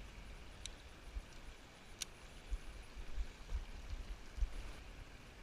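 Irregular low bumps and rumble of wind and handling on the microphone over faint outdoor hiss, with two short sharp clicks, about one and two seconds in.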